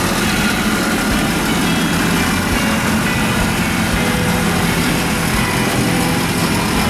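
Kubota compact tractor's diesel engine running steadily at low speed as the tractor drives slowly along a paved track.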